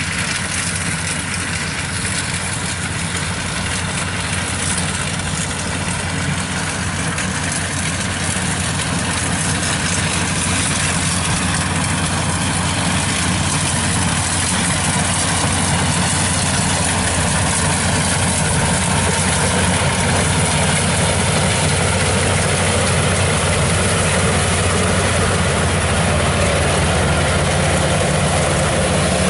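Kubota rice combine harvester's diesel engine and machinery running steadily under load while it cuts rice, growing a little louder over the first several seconds.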